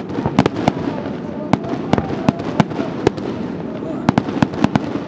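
Aerial fireworks shells bursting in a quick, irregular string of sharp bangs, several a second, over voices in the background.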